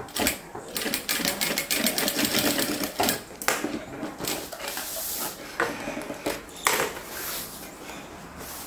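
Industrial straight-stitch sewing machine stitching fast, the needle clattering in quick even clicks, running in stop-and-go stretches with a few sharper clacks, easing off near the end.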